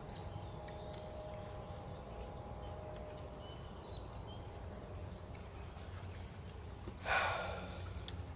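Pigs feeding on strawberries over a steady outdoor rumble, with one short, loud, breathy snort about seven seconds in.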